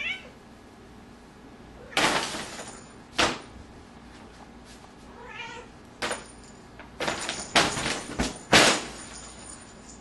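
Paper bag crinkling and rustling in several sharp bursts as a Bengal cat pounces at it, the loudest bursts near the end. The cat gives a short meow at the start and another about five seconds in.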